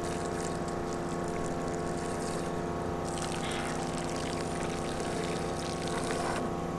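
Rainman watermaker's high-pressure pump running with a steady hum, holding about 850 psi while it makes fresh water. Product water trickles from its hose.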